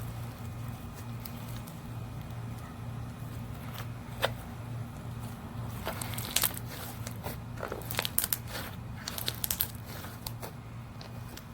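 Crunchy slime with boba beads being squeezed and pressed by hand, giving scattered crackles and sharp pops that come thickest in the second half, over a steady low hum.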